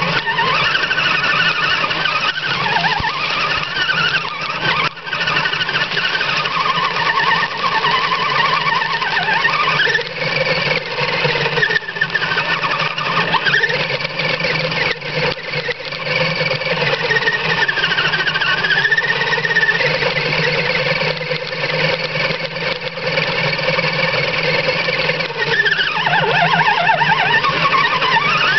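Axial RC crawler's electric motor and geartrain whining, the pitch rising and falling as the throttle is worked over rough ground.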